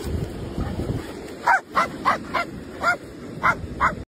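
A dog barking: a quick run of about seven short, high barks starting about a second and a half in.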